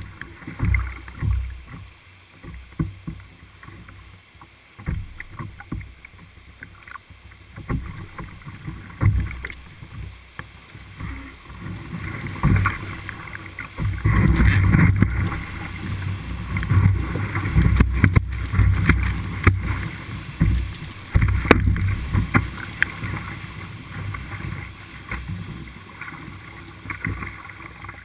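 Whitewater rushing and splashing around an open canoe running a river rapid, with water slapping the hull and paddle strokes; it grows louder and choppier about halfway through. A few sharp knocks stand out.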